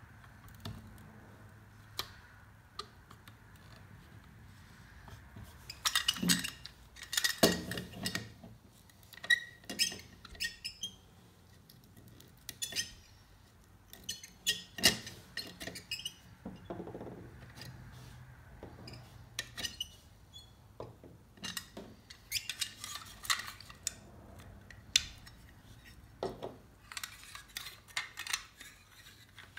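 A screwdriver prying and scraping at the pressed-steel body of a Mini Tonka toy garbage truck while the parts are worked apart, giving irregular metal clicks, scrapes and clinks with quiet gaps between.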